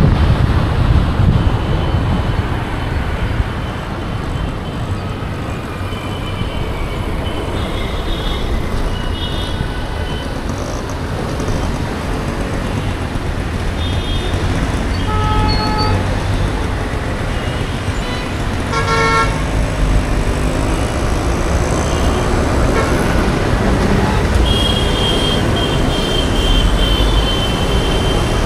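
Dense city road traffic: engines and tyres make a steady low rumble. Vehicle horns toot several times, briefly around the middle and most sharply a little past halfway, with a longer held honk near the end.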